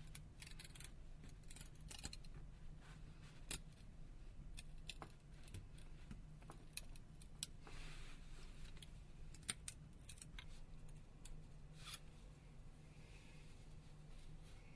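Faint, scattered clicks and light scraping of a pry tool working the side key flex cable loose inside a Nokia Lumia 1320 phone, over a steady low hum.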